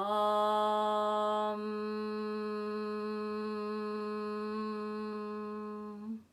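A woman's voice toning one long 'Om' on a single steady pitch. An open 'O' lasts about a second and a half, then closes into a hummed 'mm' that is held until near the end.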